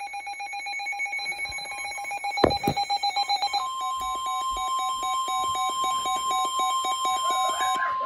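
Weather alert radio sounding a severe thunderstorm warning alert: a rapid, evenly repeating electronic beep. About three and a half seconds in, the steady NOAA Weather Radio warning alarm tone comes on beneath the beeping. A single knock about two and a half seconds in.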